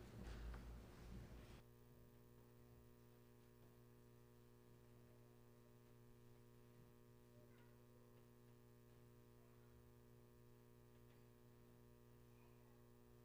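Near silence: room tone with a steady faint electrical hum, after a little shuffling noise in the first second and a half.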